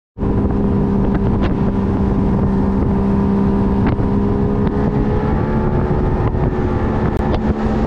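Bass boat's outboard motor running steadily at speed, a constant drone, with wind buffeting the microphone.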